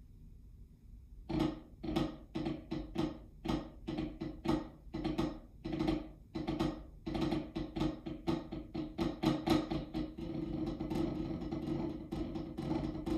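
Snare drum played with drumsticks. About a second in, separate sharp strokes and accents begin; from about ten seconds in they give way to a sustained roll.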